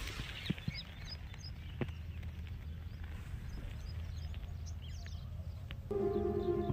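Outdoor field ambience: small birds chirping faintly over a steady low rumble, with a few soft footstep-like clicks in the first two seconds. Background music comes in near the end.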